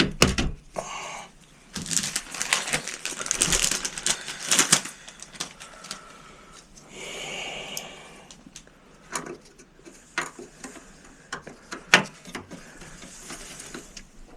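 Scattered sharp clicks and knocks with rustling as memory modules are handled and pressed into their slots inside a desktop computer case, busiest for a few seconds about two seconds in.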